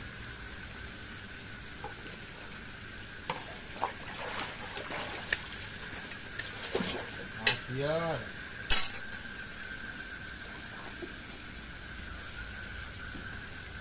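Hooked catfish splashing and thrashing at the water's surface close to the pond edge, with scattered sharp clicks and knocks. A brief rising-and-falling voiced cry comes about eight seconds in, and a steady high hum runs underneath.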